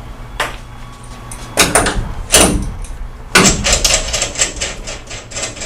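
A ratcheting wrench backing nuts off carriage bolts on a steel bike-locker door: several loud metallic knocks with a short ring, then a quick, even run of ratchet clicks from about three and a half seconds in.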